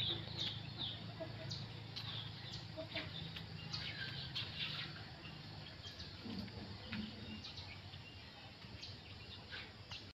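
Faint outdoor ambience with small birds chirping now and then, over a low steady hum that fades about halfway through.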